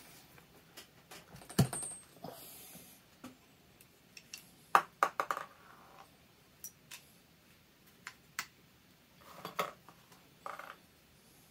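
Scattered clicks, knocks and clatter as the end cap of a Sea-Doo jet pump is worked off the pump housing and handled: a sharp knock a couple of seconds in, a cluster of clatter near the middle and more near the end.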